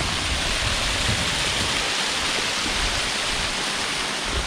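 Waterfall rushing with a steady roar of falling water.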